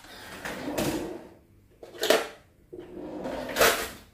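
A kitchen drawer sliding open and shut: three rushing slides, each ending in a sharp knock, about a second in, at two seconds and near the end.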